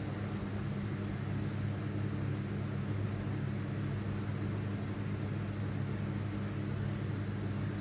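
Harbor Breeze Breezeway ceiling fan running, a steady low motor hum with an even rush of air.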